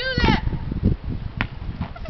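A young person's short, drawn-out yell with a bleat-like wavering pitch at the start, followed by low knocks and a single sharp click about a second and a half in.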